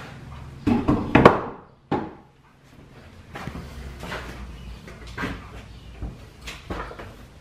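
Clunks and knocks of metal clamps and tools being handled on a lathe faceplate. The loudest cluster comes about a second in, with softer separate knocks through the rest, over a faint low steady hum.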